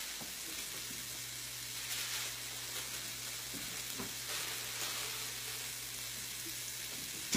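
Shrimp sizzling in olive oil in a frying pan, with scattered small pops. A low steady hum comes in about a second in and stops near the end.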